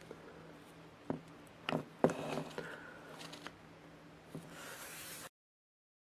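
Small mechanical clicks and rubbing as the opened Yashica Electro 35 GSN's shutter and advance mechanism is worked by hand, a few separate clicks with the loudest about two seconds in. The mechanism lacks its shutter pad, so the latch doesn't catch and there is no clop. The sound cuts off suddenly about five seconds in.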